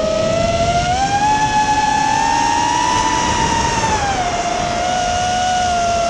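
An FPV racing quadcopter's electric motors and propellers whine, heard from the drone's onboard camera with a rough rush of wind and prop wash. The pitch rises as the throttle goes up, holds high, then drops back about four seconds in.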